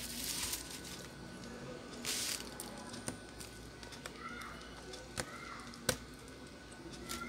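Small-screwdriver work on a netbook screen's metal hinge bracket: two short rustles of hands and parts on bubble wrap, at the start and about two seconds in, then a few separate sharp clicks of metal, the loudest near the end.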